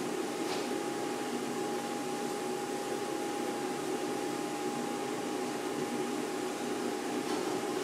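A machine running at constant speed: a steady hum and whir with one constant whine on top.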